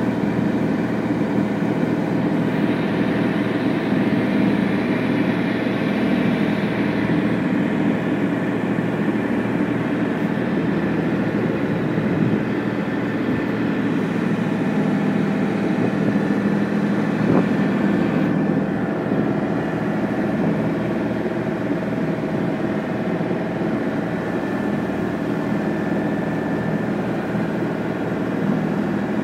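Motor launch's engine running steadily under way at cruising speed, a continuous drone with a few steady tones, over the rush of water from the wake.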